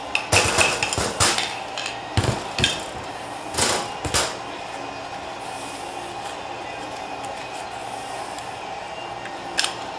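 Metal transmission parts clinking and knocking as a TH350 valve body and its steel valves are handled on a steel workbench: a cluster of sharp clicks and knocks in the first four seconds, one more near the end, over a steady background hum.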